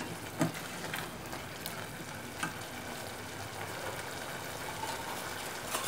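Thick tomato and coconut-milk sauce sizzling and simmering steadily in a saucepan on a gas stove, with a few faint clicks of the spatula against the pot.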